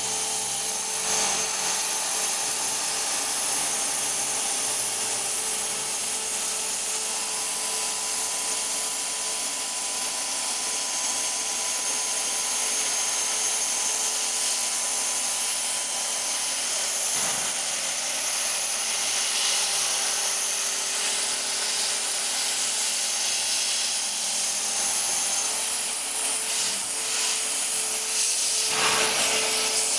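CNC router spindle cutting a wooden sheet: a steady hiss of milling with a faint steady whine underneath. There are brief louder surges about halfway through and near the end.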